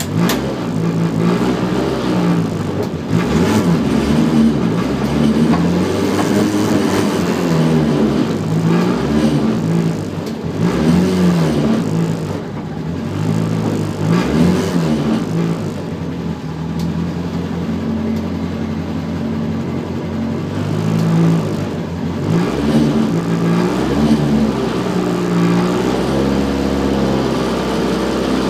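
Competition car's engine heard from inside the cabin, revved up and down over and over while the car waits at the start line, with steadier running for a few seconds in the middle.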